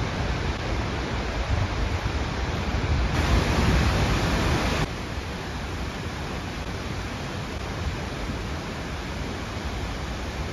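Skógafoss waterfall thundering as a steady roar of falling water. It swells for a second or two, then drops back abruptly about five seconds in, where one shot cuts to the next.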